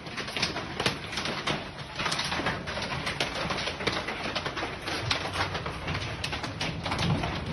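Hail falling with rain: a dense, irregular clatter of hailstones striking hard surfaces over a steady hiss, with a low rumble building near the end.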